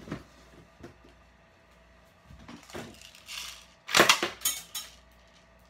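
A quick run of five or six loud, sharp clacks from a toy submachine gun, lasting under a second, about four seconds in, with a short hiss just before.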